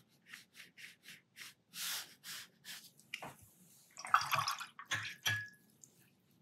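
Watercolour brush dabbing on paper in short, soft swishes, about three a second. It is followed by two louder bursts of splashing and knocking as the brush is rinsed and tapped in the water pot, with a brief ring after the second.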